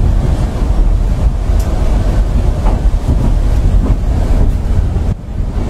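A train running, heard from on board: a steady low rumble and rattle of the moving carriage. The noise drops briefly near the end.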